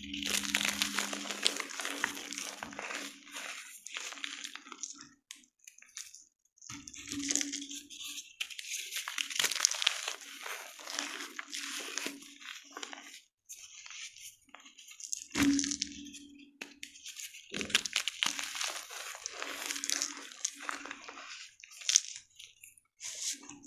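Blocks of gym chalk being crushed and crumbled, a dry, crisp crunching and crackling that comes in several stretches, with a heavier knock about 7 seconds in and again about 15 seconds in.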